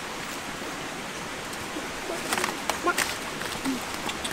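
Steady rushing hiss, with a quick run of sharp clicks and knocks about two seconds in.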